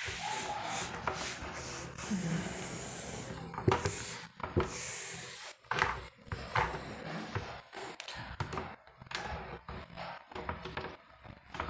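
Irregular rubbing and scratching sounds, broken by a few sharp clicks.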